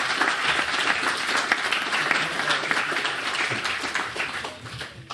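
Audience applauding after a talk. The clapping holds steady, then thins and dies away near the end.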